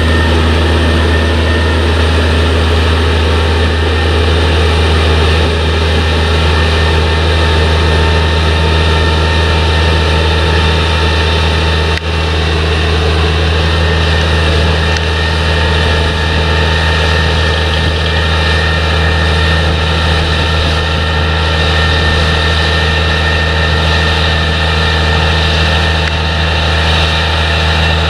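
Heavy diesel potato-harvesting machinery running steadily at constant speed: a strong, even low drone with a set of steady whines from the running machinery above it.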